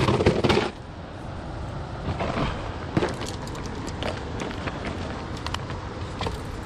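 Fishing gear being handled in a plastic kayak: a burst of knocking and rustling at the start, then scattered light clicks and taps over a steady low background noise.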